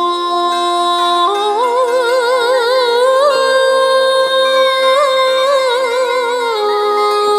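Music: the intro of a Vietnamese song on a backing track, with sustained chords and, from about a second in, a melody line of long held notes with a wavering vibrato.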